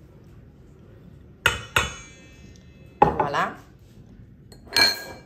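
A stainless steel mixing bowl and a glass bowl being handled and set down. A double clink with a short ring comes about 1.5 s in, a clattering knock and scrape about 3 s in, and another ringing clink near the end.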